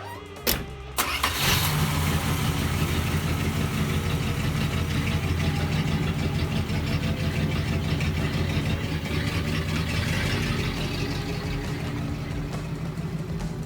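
Plymouth Belvedere's stock 318 Poly V8 starting: a short burst about half a second in, the engine catching about a second in, then idling steadily and growing a little quieter toward the end.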